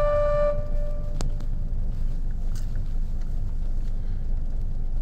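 Low, steady rumble of a car heard from inside the cabin, with a couple of faint clicks.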